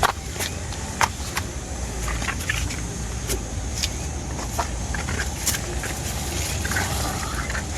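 Wind buffeting the microphone with a steady low rumble, with scattered light clicks and knocks over it, the loudest about a second in.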